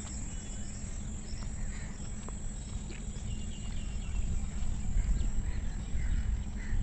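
Outdoor park ambience: scattered short bird chirps and a thin high insect drone over a steady low rumble.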